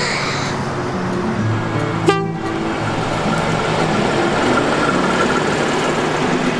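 A train running past close by on the rails, a loud, steady rush of wheel and track noise with a sharp clack about two seconds in.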